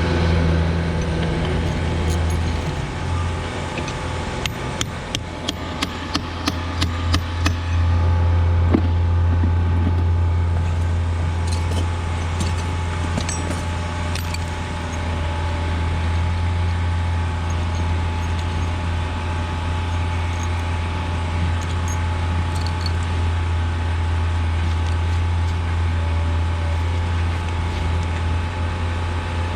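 A machine running with a steady low hum, with a run of sharp knocks about five to eight seconds in, after which the running sound is steady and a little louder.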